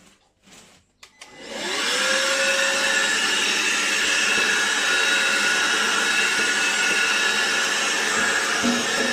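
Bosch UniversalVac 18 cordless vacuum cleaner switched on: its motor spins up with a quickly rising whine a little over a second in, then runs steadily with a loud rushing air noise and a high whine.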